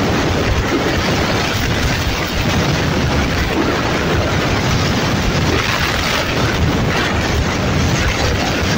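Wind rushing and buffeting over the microphone while moving at speed, a steady dense noise heaviest in the low end.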